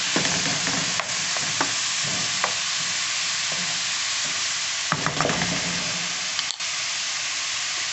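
Diced onion frying in hot oil in an aluminium pot, a steady sizzle, with a wooden spoon stirring and now and then knocking and scraping against the pot, a cluster of knocks about five seconds in.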